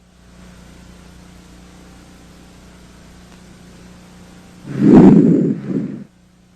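Breath sounds over the anterior chest heard through a stethoscope. One breath comes about five seconds in: a louder, longer inspiration followed by a shorter, softer expiration. Between breaths there is a steady low hum.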